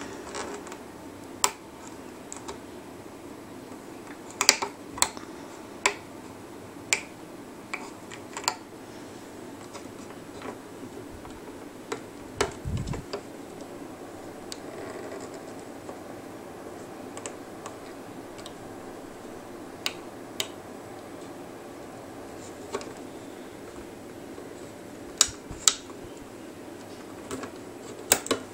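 Scattered light clicks and ticks of a hook and fingernails against the pegs of a plastic rubber-band loom as bands are lifted over, with one dull knock about halfway through, over a steady low room hum.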